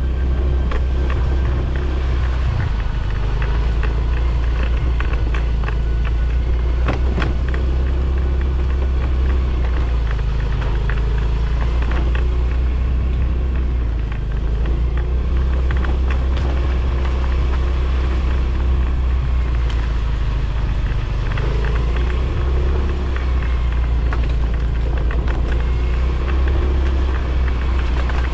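Motorcycle running steadily on the move, under a constant low rumble, with scattered short knocks from the ride over rough ground.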